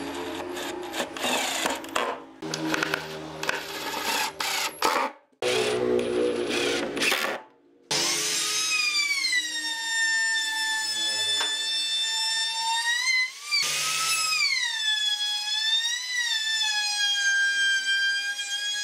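Power drill driving screws into wood in short bursts of whirring, then, after a brief pause, a compact trim router spinning up to a high-pitched whine that dips in pitch several times as the bit cuts along the edge of the wooden tabletop, stopping briefly once before running on.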